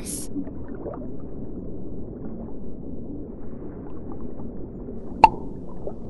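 Low gurgling water sound, with one sharp click about five seconds in.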